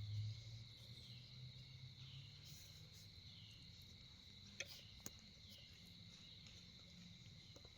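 Near silence with insects trilling steadily, high-pitched, with softer falling chirps about once a second. A short low rumble sounds at the very start, and two faint ticks come about halfway through.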